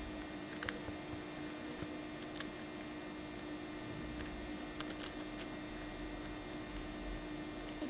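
Steady electrical hum, with a few faint scattered ticks.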